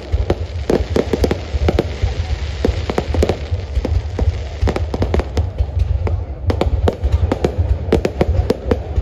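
Aerial fireworks display: many sharp bangs from bursting shells in quick, irregular succession over a continuous low rumble.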